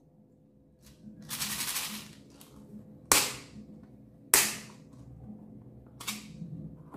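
Hard plastic flower-shaped bead case being handled and snapped open: a short rattling crackle, then two loud, sharp plastic snaps a little over a second apart, and lighter clicks near the end.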